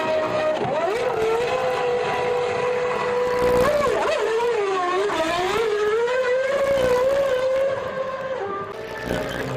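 Formula One car's V10 engine held at revs, its pitch wavering, dipping and recovering about halfway through, then holding steady before falling off briefly near the end.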